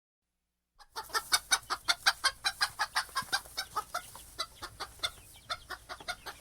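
Chicken clucking in a fast, even run of short clucks, about five a second, starting just under a second in and getting a little weaker toward the end.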